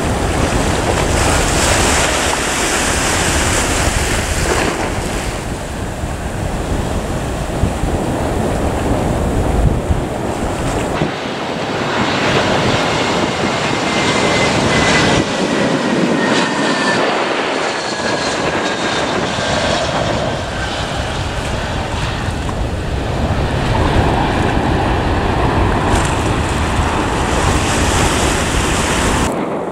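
Wind buffeting the microphone, a loud, steady rushing with a deep rumble. In the middle of it, a jet aircraft's engine whine is faintly heard falling slowly in pitch.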